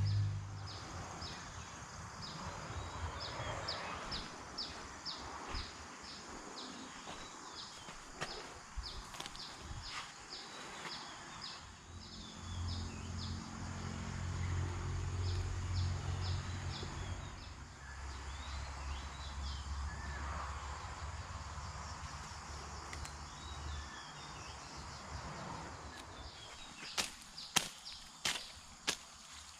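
Outdoor ambience with a faint high chirping repeated about twice a second and some rustling, rumbling handling noise. Near the end comes a quick run of sharp knocks, about two a second.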